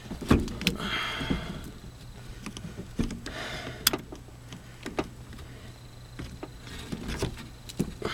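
Irregular knocks and clicks, with three short bouts of scraping and rustling about one, three and a half, and seven seconds in, from hands-on work in the crawlspace under a mobile home.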